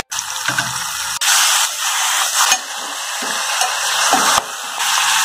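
Camel liver and sliced onions sizzling in hot oil in a metal pot while being stirred with a spoon; the sizzle gets louder about a second in.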